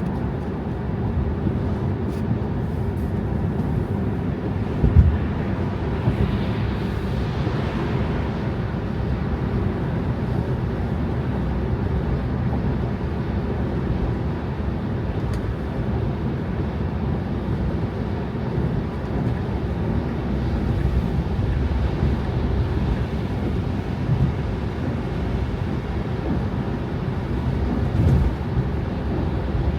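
A car driving on snow-covered roads: a steady low rumble of tyres and engine. There is a short thump about five seconds in and another near the end.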